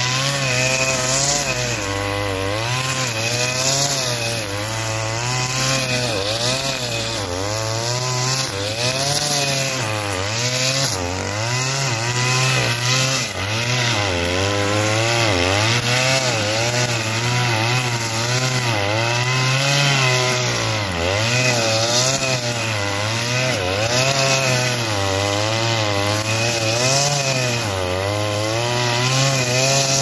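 Oleo-Mac BC 530 T two-stroke brushcutter running at high revs while cutting tall dry grass. Its engine pitch dips and recovers over and over, roughly every second or two, as it bites into the grass with each side-to-side sweep.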